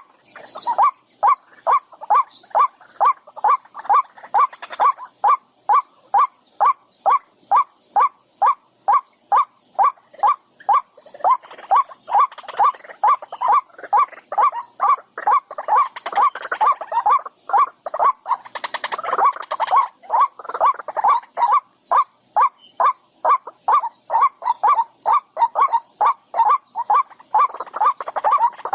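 An animal's call: one short pitched note repeated evenly and loudly, about twice a second, without a break.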